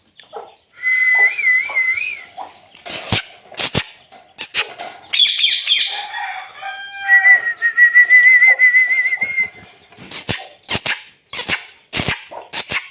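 Pet parrot calling: a wavering whistle, a chattering burst about five seconds in, a longer trilling whistle, and short harsh squawks in between that come thick and fast near the end.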